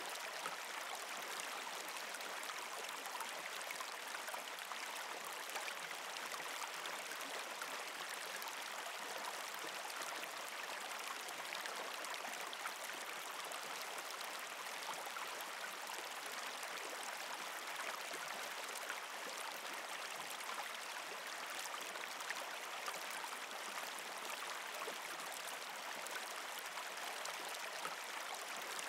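Steady sound of running water, like a flowing stream, even and unbroken with faint small ticks of splashing.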